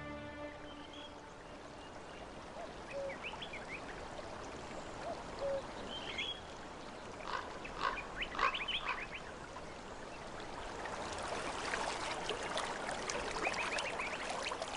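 Marsh ambience: scattered short bird calls over a soft sound of running water. The trickling water grows louder in the last few seconds.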